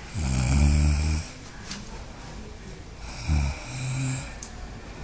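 A sleeping person snoring: a loud snore about a second long at the start, then a shorter, softer snore about three seconds in.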